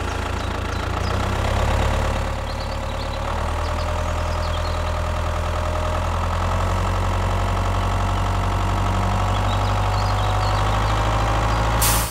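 Tractor engine running steadily with a deep, low hum, its pitch creeping slowly upward.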